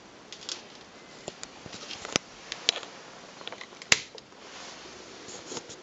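Scattered sharp clicks and light knocks from a hand handling the 1960s Helina Rolls 35mm camera that forms the lamp head, the loudest click about four seconds in.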